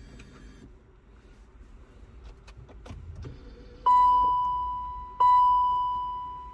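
Faint clicks of the key and switches, then the BMW X5's dashboard warning chime sounds twice, each a clear high tone that starts sharply and fades over about a second. The ignition has been switched on without starting the engine, to prime oil to the new timing chain tensioner.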